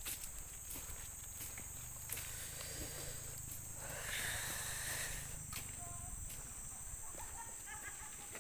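Faint outdoor ambience: a steady high-pitched insect drone with a low rumble underneath, and a brief soft rush of noise about four seconds in.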